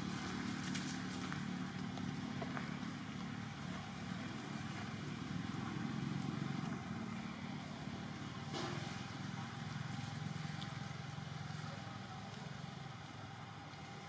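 A motor engine running steadily with a low hum, with a few faint clicks.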